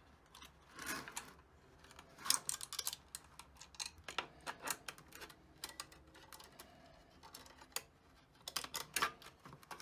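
Clicks and light taps of metal bolts and springs being handled and fitted by hand into 3D-printed plastic parts, in scattered bunches of quick clicks.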